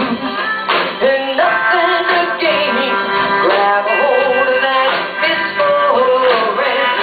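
Live rock band playing a song, with drums, guitar and bass under a sung melody line.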